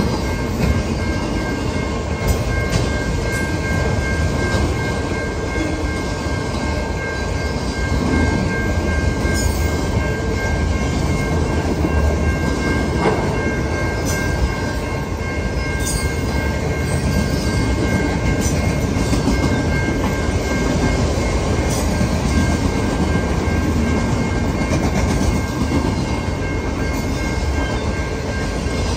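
Autorack freight cars rolling past at a level crossing: a steady rumble and clatter of wheels on rail, with a few sharp clanks here and there and two steady high tones throughout.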